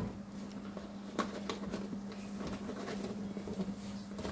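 Cardboard flaps of a reel box being opened and handled, giving scattered light taps and rustles over a steady low hum.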